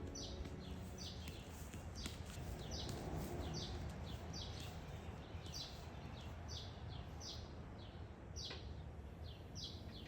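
A small songbird chirping repeatedly: short, high, downward-sliding chirps about once or twice a second, over a faint steady low background hum.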